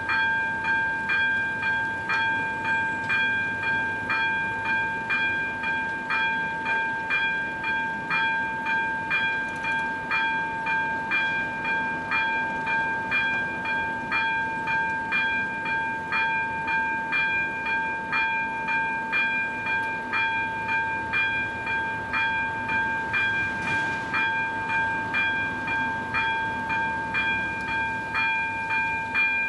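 Electronic warning bell of an AŽD 71 level-crossing signal ringing steadily at about two strikes a second, each strike ringing on into the next. It is the crossing's warning that a train is approaching.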